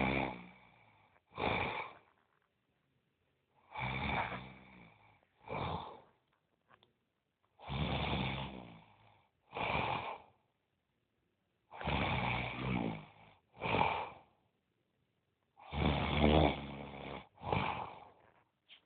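A sleeping person snoring in a steady rhythm: about every four seconds a long snore of a second or two is followed by a shorter one, with quiet between the pairs.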